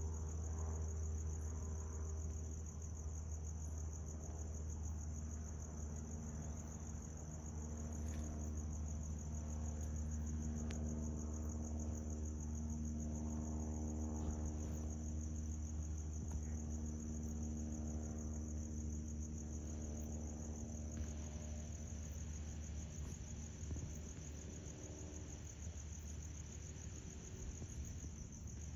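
Crickets trilling steadily in a high, fast-pulsing chorus, over a steady low rumble.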